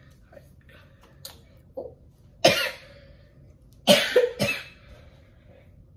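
A person coughing three times: one cough about halfway through, then two close together a second and a half later.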